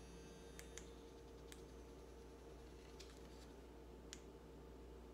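Near silence with a low steady hum and about five faint, scattered clicks from small items being handled in the hands.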